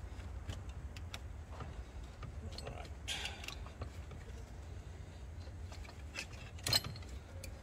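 Hand tools working spring hose clamps on a car engine: scattered metallic clicks and clinks, a scraping clink about three seconds in, and a single sharp metallic click near the end, which is the loudest sound. A low steady hum runs underneath.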